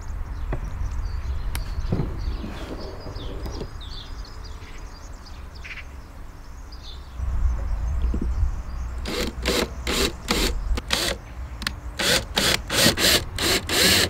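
Cordless drill driving screws into a pine frame to mount metal drawer slides: a few light knocks, then from about nine seconds a run of short rasping bursts, about three a second, over a steady low rumble.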